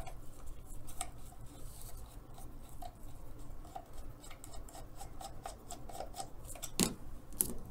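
Screwdriver backing a screw out of the underside of a sewing-machine foot controller: a run of small irregular clicks and scrapes, with two sharper clicks near the end.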